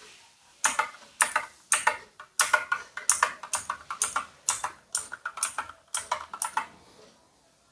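Keys of an ANT Sports MK3400 Pro V3 mechanical keyboard pressed one after another as each key is tested. They make a run of sharp clacks, about three a second, that starts just under a second in and stops about a second before the end.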